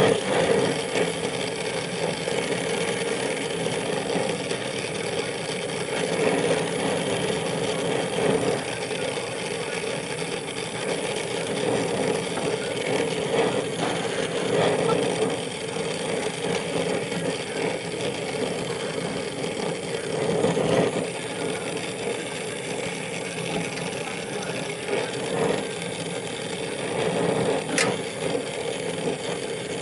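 A motor-driven machine running steadily with an even hum, and a couple of light clicks near the end.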